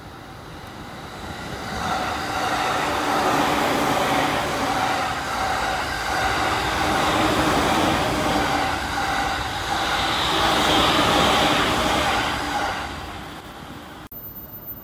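Electric commuter train passing at speed without stopping. Its rumble and wheel noise swell in about two seconds in, stay loud with a steady hum over them for about ten seconds, then fade as the last cars go by.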